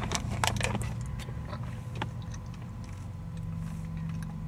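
A plastic straw stirring an iced caramel frappe in a plastic cup: a quick run of clicks and scrapes in the first second and a single click about two seconds in. Under it is a steady low hum inside the car cabin.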